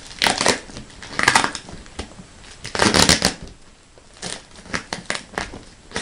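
A plastic bag and packing paperwork crinkling and rustling as they are pulled out of a cardboard shipping box, in several short bursts with the loudest about three seconds in.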